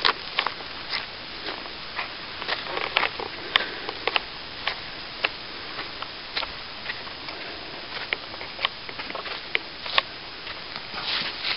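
Footsteps on a dry dirt trail strewn with dead leaves and twigs, about two steps a second, from someone walking uphill.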